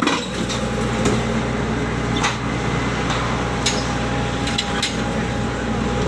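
Steady low drone of ship machinery, with a few sharp knocks scattered through it, the knocks coming from unloading frozen tuna between the vessels.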